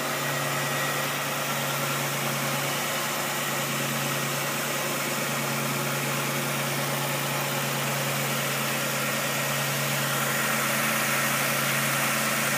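1999 Pontiac Grand Prix SE's 3800 V6 idling steadily, heard from close up under the open hood.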